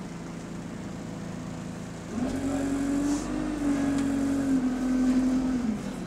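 Diesel engine of a Euro 5 Alexander Dennis Enviro200 Dart bus with Allison automatic gearbox, heard from inside the saloon. It runs at a steady idle, then about two seconds in its pitch jumps up and it gets louder with a deeper rumble. It holds that higher speed for about three and a half seconds before dropping back near the end.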